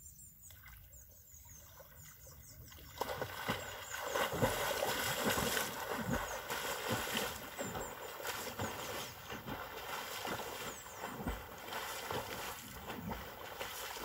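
Water splashing from a person swimming in a lake: the splashing starts suddenly about three seconds in and goes on as a run of stroke splashes, easing a little after the first few seconds. Birds chirp faintly in the quiet start.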